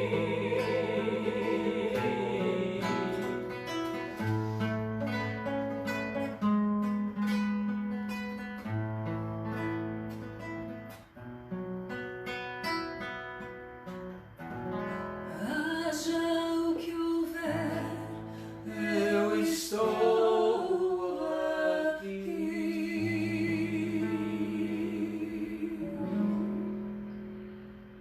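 Acoustic guitar picking and strumming under a sung voice, which holds long notes with vibrato at the start and again near the end; the music fades out over the last couple of seconds.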